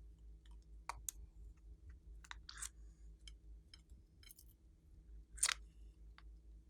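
Glossy slime being pressed and stretched by hand, giving scattered sticky clicks and pops, the loudest about five and a half seconds in, over a faint steady low hum.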